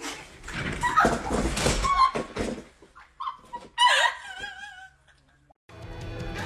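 A person falling off a bed: a loud crash and thumps with a yell, then short cries and a high, wavering whimper. Music and talk start near the end.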